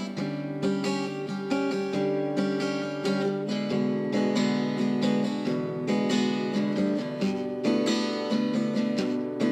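Background music: strummed acoustic guitar with no singing.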